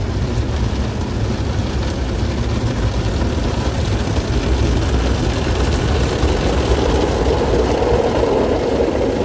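Automatic car wash running over the car, heard from inside the cabin: a steady, loud rush of water and machinery with a low rumble, growing louder a little over halfway through.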